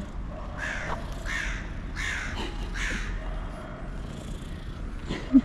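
A crow cawing about four times in a row, harsh calls that fall slightly in pitch. A brief, louder low sound follows near the end.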